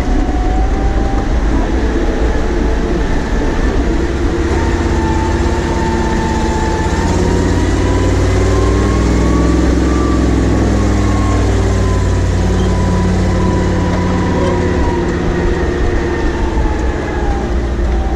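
Ural army truck driving off-road: a low, steady engine rumble with a drivetrain whine that climbs slowly over the first half and falls back toward the end.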